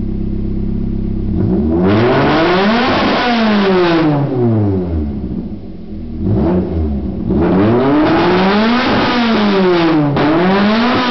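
Toyota 4A-GE 20-valve Blacktop inline-four with individual throttle bodies, idling and then revved and let fall back several times, the pitch rising and falling with each blip of the throttle. The engine still has a flat spot in its rev response, which the owner puts down to old ignition leads sparking.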